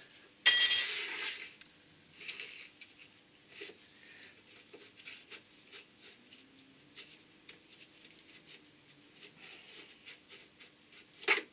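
A steel hex key set down on a steel bench top: one loud ringing metallic clink about half a second in. Quieter knocks and rubs from handling a router motor follow, with another sharp click near the end.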